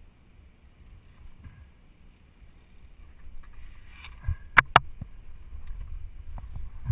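Zip line gear on a steel cable: a low rumble, then three sharp knocks close together about four and a half seconds in, as the pulley and carabiners jolt against the cable.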